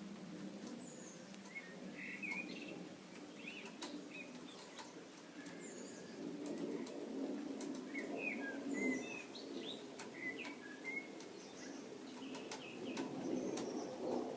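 Birds chirping in short, high calls scattered throughout, over a low murmur that swells in the second half, with occasional light clicks.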